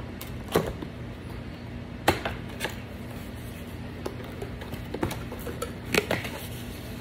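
Fingers working open a cardboard product box: a handful of sharp taps and scrapes of hands and flaps on cardboard, spread unevenly.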